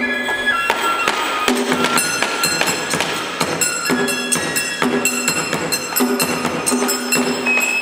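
Live Japanese traditional instrumental music: a steady stream of sharply struck, plucked string notes with held higher notes over them.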